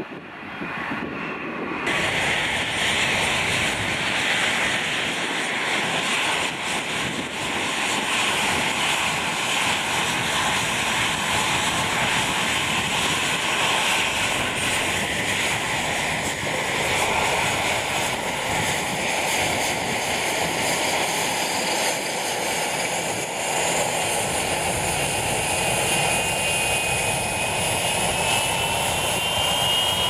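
Embraer Legacy 600 business jet taxiing, its turbofan engines running with a steady loud rushing noise and a thin turbine whine that rises slightly in pitch near the end. For the first two seconds a quieter, more distant jet is heard on approach before the sound cuts to the taxiing jet.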